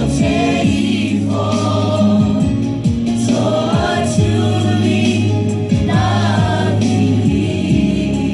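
Children and women singing a slow song together, a boy's voice at the microphone in front, over instrumental accompaniment with sustained low chords and a moving bass line.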